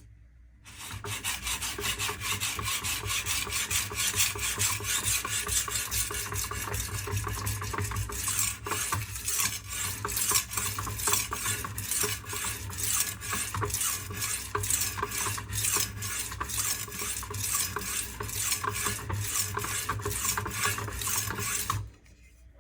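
W2 steel kitchen-knife blade being stroked rapidly back and forth across a lubricated sharpening stone, most likely the coarse silicon carbide stone of a Smith Tri Hone, in an even run of wet scraping strokes. It starts about a second in and stops suddenly near the end. The grinding raises a burr along the edge.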